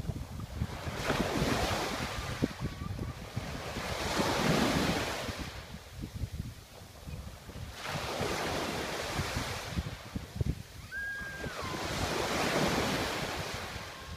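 Sea waves breaking and washing up the shore, swelling and fading about every three to four seconds, with wind buffeting the microphone.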